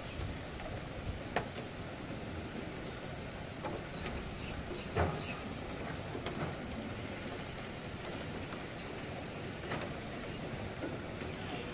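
Steady hiss of heavy rain and wind, with a few scattered sharp drips or knocks; one about five seconds in is the loudest.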